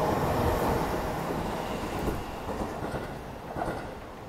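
Seibu 20000 series electric train pulling away from the station, its running noise fading as it goes. A couple of sharp wheel clacks over the rail joints come about two seconds in and again about three and a half seconds in.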